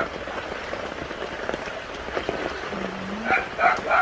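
Steady rain falling on standing floodwater. Near the end an animal calls three times in quick succession, short loud calls that stand out above the rain.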